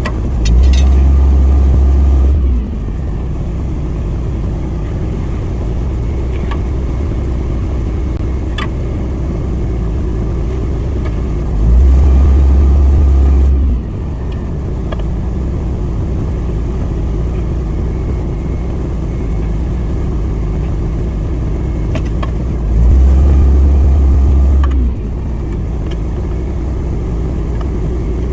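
Steady low engine rumble that swells louder for about two seconds three times, roughly every eleven seconds, with a few faint clicks in between.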